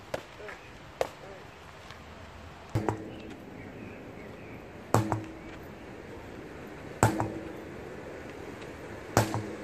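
Sledgehammer striking a large truck tyre four times, about two seconds apart, each blow a heavy thud with a short ringing tone. Near the start, two sharp smacks of punches landing on focus mitts.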